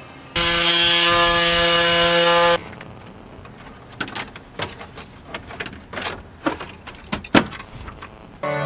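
A loud steady whir, a hum over hiss, runs for about two seconds and cuts off abruptly. Then come scattered sharp clicks and knocks of a plastic dash bezel being pressed into a Chevy truck's dashboard.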